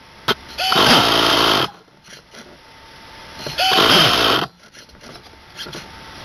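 Electric starter cranking the SH PT21-P3 nitro engine in two bursts of about a second each, a few seconds apart, each burst sweeping in pitch. The engine does not catch: the fuel tank has run dry.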